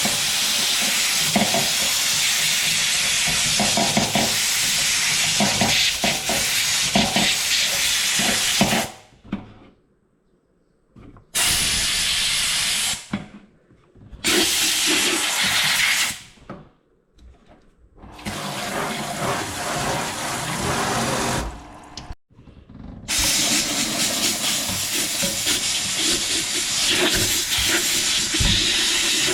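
Steam cleaner jetting pressurised steam with a loud, steady hiss, switched off and on several times: a long blast, then three shorter bursts, then a long blast again.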